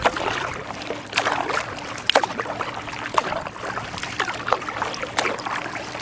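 Kayak paddling: the paddle dipping and splashing in the water, with irregular sharp clicks and drips over a steady hiss.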